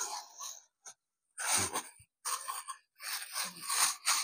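Clear plastic bag crinkling in several short bursts as a tripod is worked out of it.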